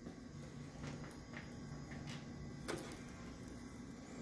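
A few faint clicks and taps from a PC case's hinged side panel being handled and swung open, over a low steady hum.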